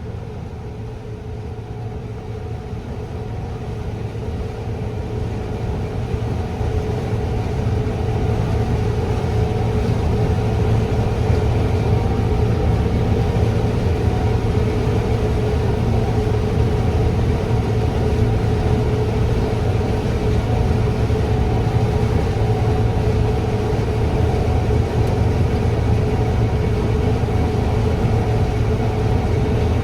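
Combine harvester running while cutting corn: a steady low engine drone with a constant hum above it, getting louder over the first several seconds and then holding level.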